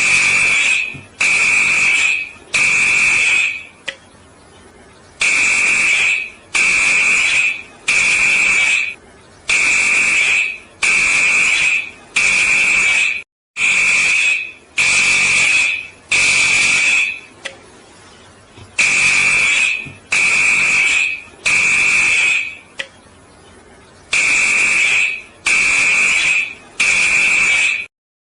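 Fire alarm sounding high-pitched beeps about a second long, mostly in groups of three with a longer pause between groups, the temporal-three evacuation pattern.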